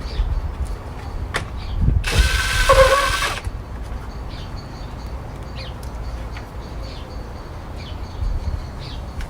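Workshop tool and handling noise on a motorcycle: scattered light clicks, with one loud, short grinding rattle about two seconds in that lasts just over a second.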